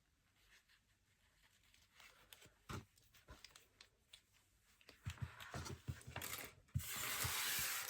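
Doll packaging being handled: a few faint clicks, then from about five seconds in rustling and small knocks, ending in a loud tear lasting about a second.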